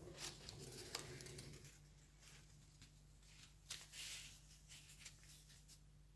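Faint rustling and light scraping of paper being handled and laid down on a cloth-covered table, loudest about a second in and again near four seconds in, over a steady low hum.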